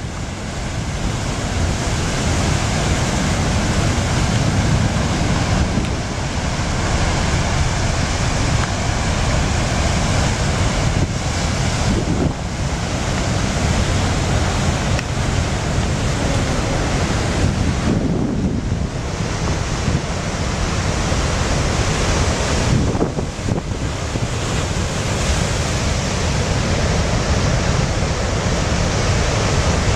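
Heavy hurricane-driven surf breaking and churning over a rocky shore, with strong wind buffeting the microphone. The din is continuous and eases only briefly a couple of times.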